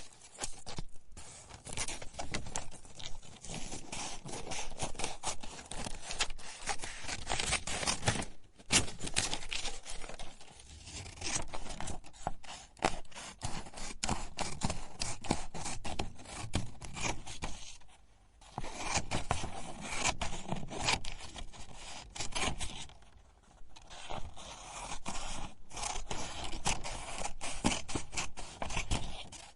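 Scissors cutting paper: a run of snips and scraping blade strokes through the sheet, broken by short pauses about 8 seconds in, around 18 seconds and around 23 seconds.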